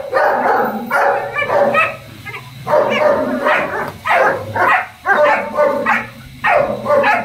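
Dog barking repeatedly, loud and sharp, in short runs of barks with brief pauses between them.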